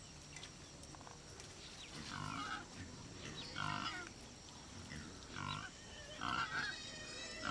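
An animal calling in four or five short, pitched bursts about a second and a half apart, starting about two seconds in.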